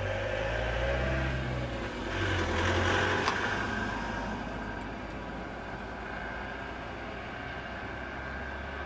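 A motor vehicle's engine rumble that swells and then fades away about three and a half seconds in, leaving a steady low background noise.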